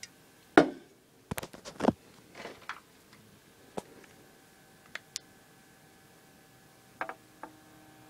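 Handling noises: a string of knocks and clicks as things are picked up and set down on a wooden desk, the loudest knock about half a second in and a quick run of clicks just after a second in, then a few single clicks spread through the rest.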